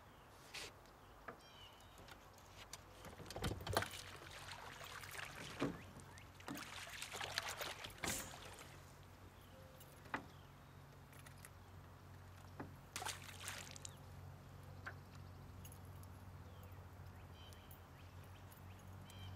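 Water splashing and sloshing beside a small aluminium fishing boat in several bursts, with scattered clicks and knocks. A low steady hum sets in about four seconds in.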